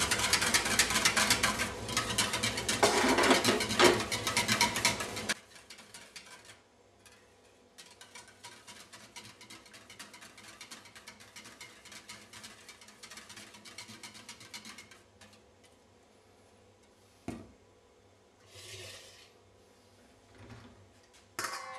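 Wire whisk beating a liquid egg-and-milk mixture in a small stainless-steel bowl, a fast rattling of wires against metal, loud for about five seconds and then much softer for about ten more. It stops, and a sharp knock comes near the end.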